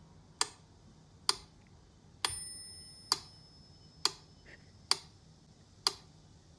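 Mechanical pyramid metronome ticking steadily, a little under once a second, with its bell ringing on the accented beat once, about two seconds in.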